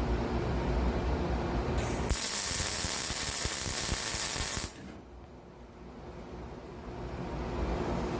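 Welder laying a tack weld on sheet-metal repair panel steel: a steady crackle of the arc that starts about two seconds in and stops after about two and a half seconds. Before it there is a low steady hum.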